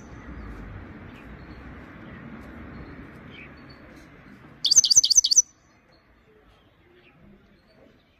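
Himalayan goldfinch (grey-crowned goldfinch) giving one short burst of rapid, high twittering notes about five seconds in. Before it there is a low steady background rumble.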